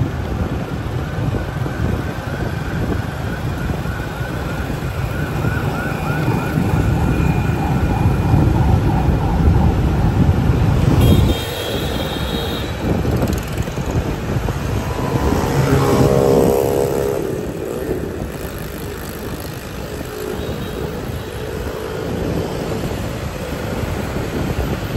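City street traffic heard from a moving motorbike: a steady low rumble of engines and wind that eases about halfway through. Over it, a few brief pitched tones sound, including a falling tone a little after the middle.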